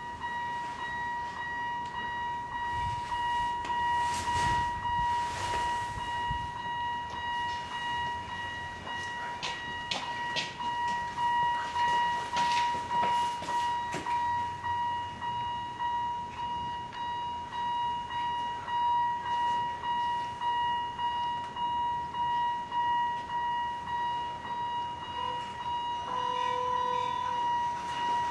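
A steady high-pitched whine, pulsing evenly, with scattered faint knocks.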